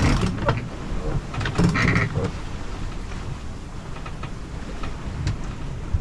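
Steady wind and water noise on a sailboat under way, with a short nasal call-like sound about two seconds in.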